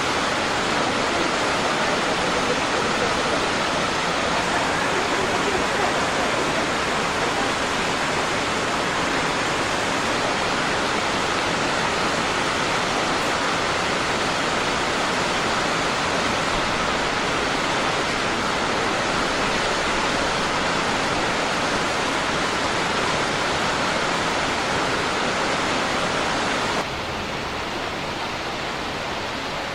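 Waterfall, a steady rush of falling water. Near the end it drops a little quieter and duller.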